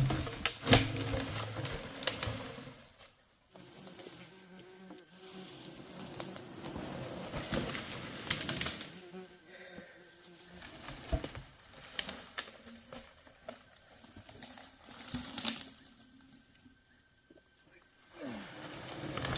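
A steady high-pitched insect drone, with scattered knocks and clicks and a few louder thumps in the first two seconds.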